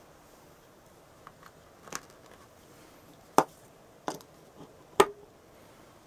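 A handful of sharp plastic clicks and knocks, two of them much louder than the rest, as the AC/DC power adapter is handled and plugged in and its DC plug is pushed into the jack of the Lego Technic Hub's power lead.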